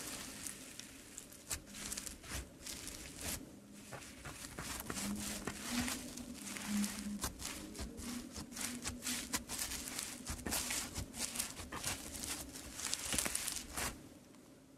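Hands pressing and poking into a crunchy, bead-filled slime, giving rapid crackling and small pops. The crackles come thickest near the end, then thin out.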